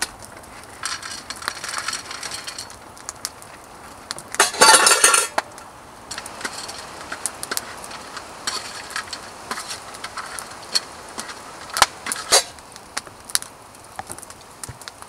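Plastic bag crinkling, then dry dog kibble poured onto a steel mess-kit lid in a loud rattle of about a second, a little over four seconds in. A metal spoon then scrapes and clinks against the steel lid as the kibble is stirred, with a couple of sharp clinks near the end.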